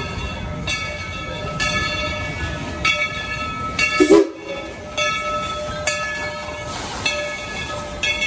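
Dollywood's steam locomotive No. 70 passing close, its bell ringing about once a second over the low rumble of the running train. A sudden loud burst comes about four seconds in.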